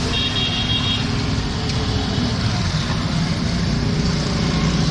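Steady street traffic noise of passing vehicles, with a brief high-pitched tone in the first second.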